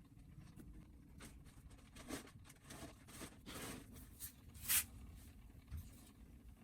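Faint scattered scrapes and rustles, about a dozen short strokes, the loudest about three quarters of the way through.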